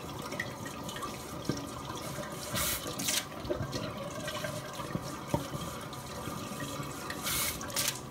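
Water running from a bidet's tap as a steady splashing stream, with two brief louder surges of splashing, about three seconds in and near the end, as a cat paws at the water.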